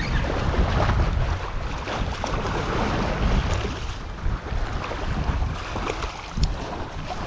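Strong wind buffeting the microphone over small waves washing up onto a sandy beach, with a couple of brief light clicks.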